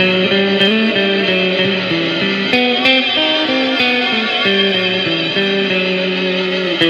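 Electric guitar played through an EarthQuaker Devices Astral Destiny octave reverb pedal. It is a slow line of single picked notes, each one sustained and ringing into long reverb trails with higher tones layered above.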